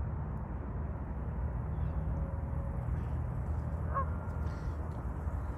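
Steady low rumble of wind on the microphone, with a short waterfowl call about four seconds in.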